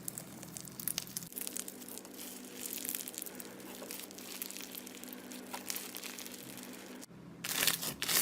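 Slime being squeezed and pressed by hand, giving many small crackles and pops. About seven seconds in it switches to a louder, denser crackling.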